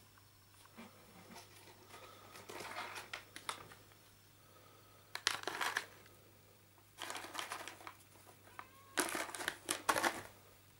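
Four bursts of crinkling and rustling, like plastic or paper being handled, over a faint steady hum; a brief rising squeak comes just before the last and loudest burst.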